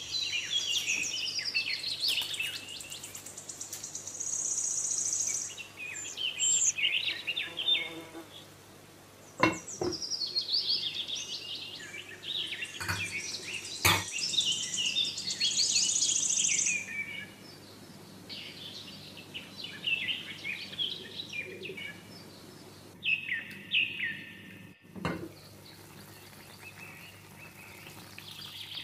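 Birds chirping and twittering in quick runs, busiest in the first half and sparser later. A few sharp clicks cut through, the clearest about halfway in as a glass lid is set on the pan.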